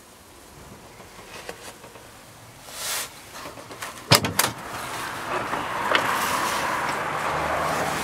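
GAZ-3309 truck cab door being opened from inside: the latch gives two sharp clicks about four seconds in, then the door swings open and a steady outside hiss rises and stays.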